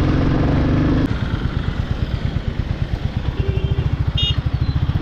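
Motorcycle engine heard while riding, running steadily, then after about a second dropping to a lower, evenly pulsing beat. A short high beep comes near the end.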